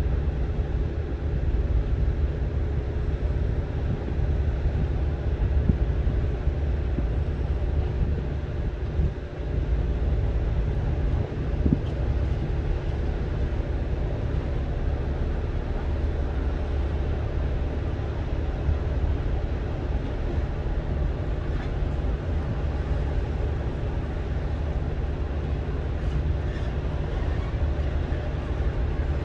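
Strong sea wind buffeting the microphone with surf on a rocky shore: a steady, heavy low rumble under an even rushing noise.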